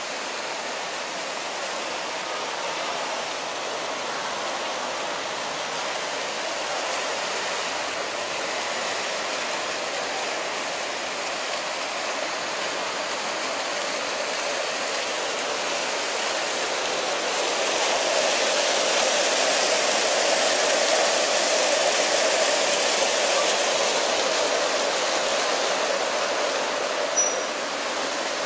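Fountain jets splashing into their stone basin: a steady rush of falling water that grows a little louder past the middle, with a short tap near the end.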